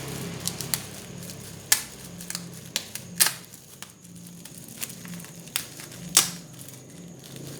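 A Dell Latitude E5440 laptop being handled: about ten irregularly spaced sharp clicks, from its keys and buttons being pressed, the loudest near 2, 3 and 6 seconds in. A low steady hum runs underneath.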